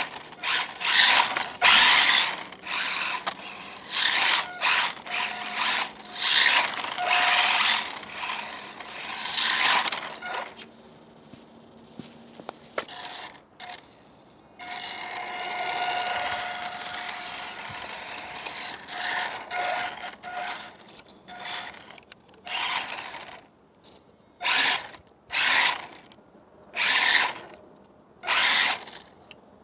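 Small RC truck's electric motor and drivetrain gears whirring in many short bursts as the throttle is worked on and off, with one longer, steadier run past the middle.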